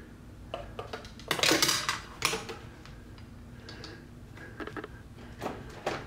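Small metal parts of a Singer 348 sewing machine's needle-bar mechanism clicking and scraping as a reverse-thread screw is turned out by hand. There is a louder short scrape about a second and a half in, another brief one just after, and a few light clicks near the end.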